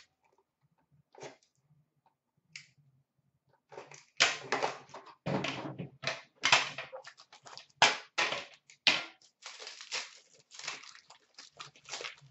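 Metal Upper Deck Premier hockey card tin being opened and handled: a dense run of sharp knocks, clicks, scrapes and rustles that starts about four seconds in and is loudest over the next several seconds, then the cards inside are handled.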